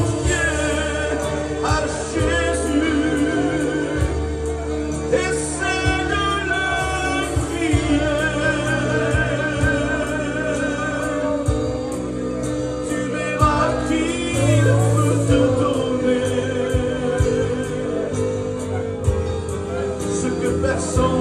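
A man singing a French gospel hymn with vibrato over a steady instrumental accompaniment with a bass line and a light beat.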